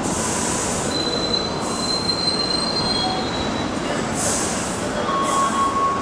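MTR Light Rail Phase I car running along the platform on its steel wheels with a steady rumble. Its wheels give a long high-pitched squeal about a second in and a lower squeal near the end, mixed with several short bursts of hiss.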